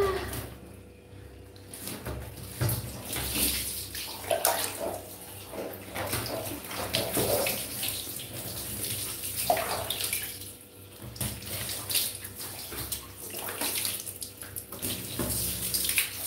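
Water poured from a plastic dipper, splashing over a baby monkey and onto a padded bath mat in uneven spurts.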